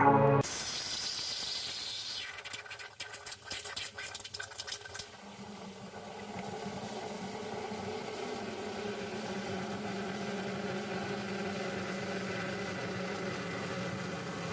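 Steamer hissing as it thaws a frozen, clogged refrigerator defrost drain. A spell of crackling rattles runs from about two to five seconds in, then gives way to a steady hiss and hum.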